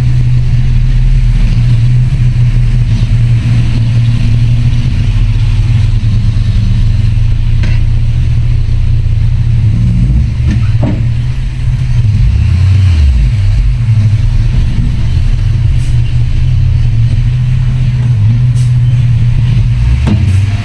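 Heavy diesel engine of earthmoving machinery running loud and steady, its note dipping and recovering briefly around the middle, with a few short knocks over it.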